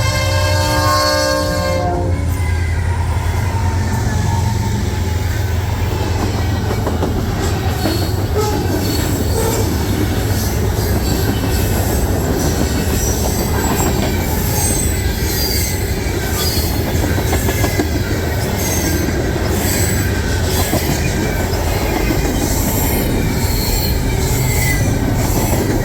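Diesel freight locomotive horn sounding a chord that cuts off about two seconds in, then a freight train passing close by: a steady low engine and rolling rumble, with wheels squealing and clacking over the rail joints.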